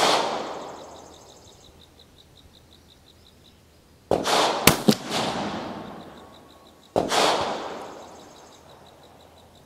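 Uberti Walker .44 percussion revolver fired with a heavy 55-grain charge behind a round ball. The echo of one shot is fading at the start, then two more shots about 4 and 7 seconds in each crack sharply and die away over a couple of seconds. Two more sharp cracks follow half a second after the first of these shots.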